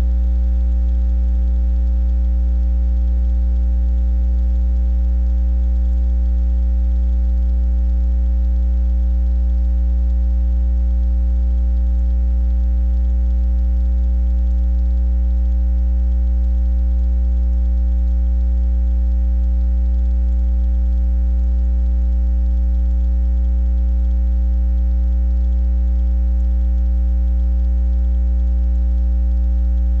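Steady electrical mains hum, deep and buzzy, that does not change at all.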